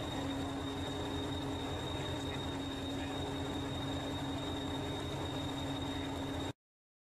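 Hastings diesel-electric multiple unit 1001 idling at a standstill: a steady diesel rumble with a constant low hum and a thin high whine. It cuts off suddenly about six and a half seconds in.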